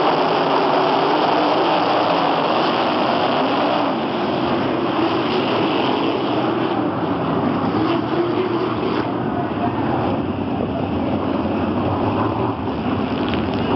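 Several sprint car engines running hard on a dirt oval, their pitch rising and falling as the cars pass. The sound thins somewhat after about nine seconds in.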